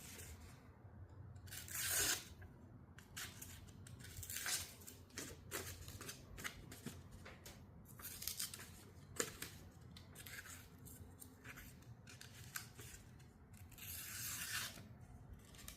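A freshly sharpened pocket knife slicing through paper in a series of separate strokes, testing the edge. The longest cut comes near the end.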